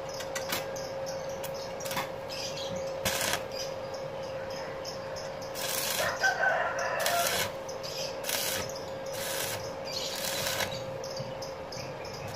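Stick arc welding on a steel LPG cylinder: several short bursts of crackling as a bracket is tacked on, over a steady hum.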